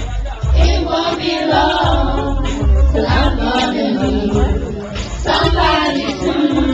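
A church choir and congregation singing to a live accompaniment, with a deep, loud beat about once a second.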